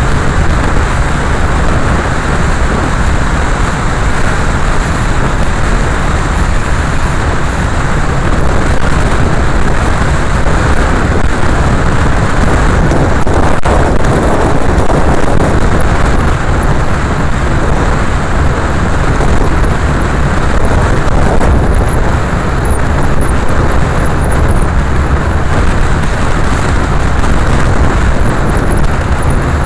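Steady driving noise of a car on a wet road: engine running and tyres on the wet surface, heard from the moving car itself.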